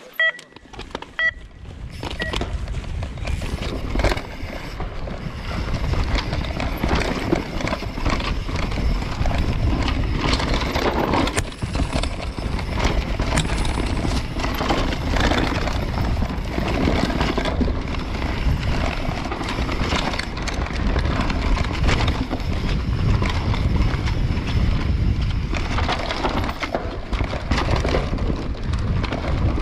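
Short electronic start-timer beeps in the first two seconds, then an enduro mountain bike ridden fast down a dirt forest trail: a steady loud rush of wind over the camera microphone and tyres on dirt, with frequent knocks and rattles from the bike over roots and bumps.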